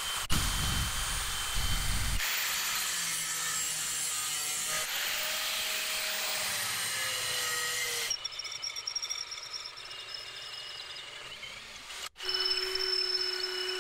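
Power tools at work in several short clips cut together: a steady rushing noise with thin high whines, changing abruptly every few seconds.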